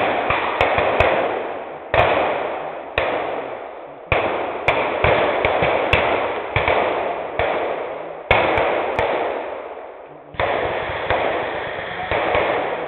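Irregular small-arms gunfire firing blanks: single shots and short quick strings of shots, each one sudden and trailing off in a long echo.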